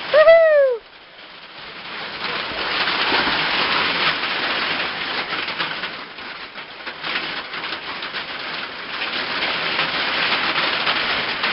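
Heavy rain coming down hard, a dense steady hiss that builds up over the first two seconds. A short high call, like a yell, sounds right at the start.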